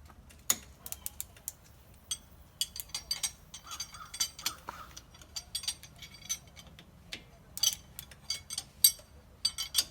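Hand ratchet with a T55 Torx bit clicking in short, irregular runs, with metal clinks, as the brake caliper bolts are loosened.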